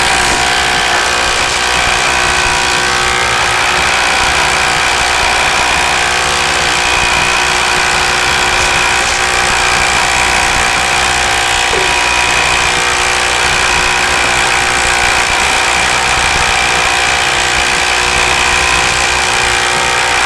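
Ryobi brushless cordless impact driver hammering without a break as it drives a 10-inch, 3/4-inch lag screw into timber with no pilot hole.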